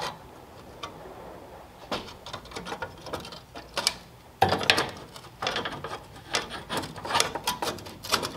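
Hand tools clicking, rattling and scraping as the heat shield under an old car is worked loose, the clatter growing busier about two seconds in and louder about four and a half seconds in.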